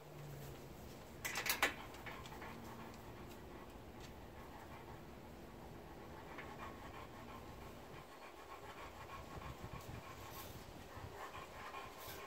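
A dog panting faintly, with a brief rattle about a second in that is the loudest sound.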